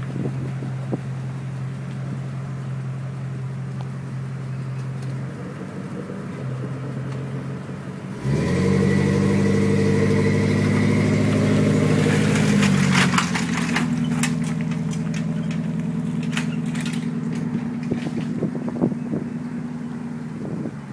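Small tiller-steered outboard motor idling steadily, then about eight seconds in it is throttled up sharply and runs loud as the boat gets under way. About five seconds later it eases back to a slightly quieter steady run, fading as the boat moves off.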